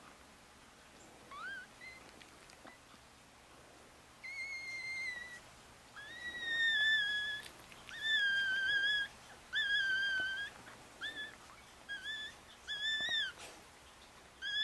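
Newborn Chihuahua puppies whining: a string of thin, high-pitched squeals, several lasting a second or more, with quicker short ones near the end.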